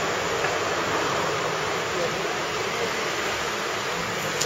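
A steady, even hiss of outdoor background noise with no distinct events.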